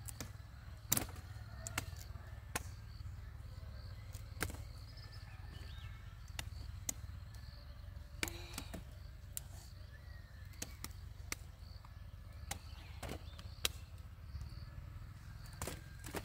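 Irregular sharp knocks, roughly one a second, over a low steady rumble.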